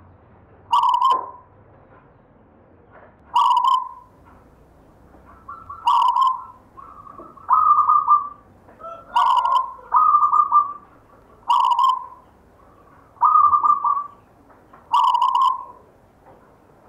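Zebra dove (perkutut) cooing: a series of about ten short coos, one every one to two seconds.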